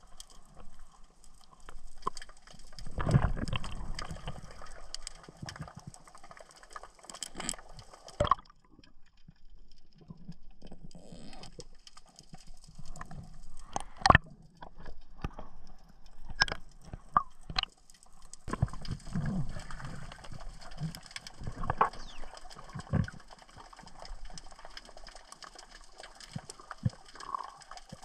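Underwater sound from a diving camera's housing in shallow water: uneven rushing and gurgling of moving water, with scattered sharp clicks and knocks, the loudest about 14 seconds in.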